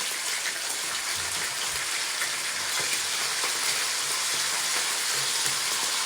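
Bacon sizzling and crackling in a frying pan, a steady hiss.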